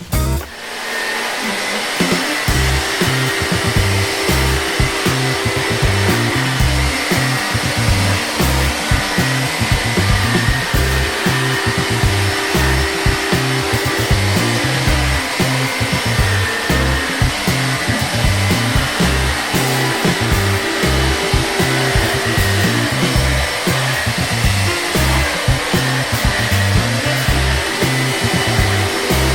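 Electrolux Ultrapower cordless stick vacuum running steadily, a loud rushing of air with a high motor whine, over background music with a steady bass beat.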